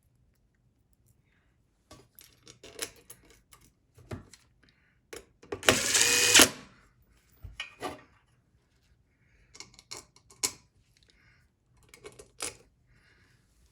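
An impact driver with a Torx bit runs briefly in short spurts to drive screws, the longest and loudest spurt about six seconds in, among scattered clicks and rattles of screws and metal motor parts being handled.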